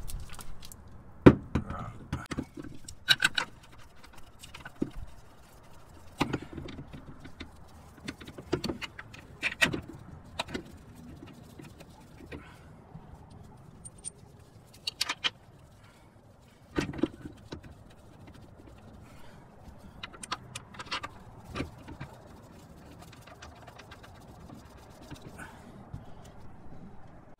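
Scattered metallic clinks, clicks and knocks, the loudest about a second in, from the rear shock absorber, coil spring and bolts of a 2013 Chevrolet Camaro being handled and fitted into its rear suspension by hand.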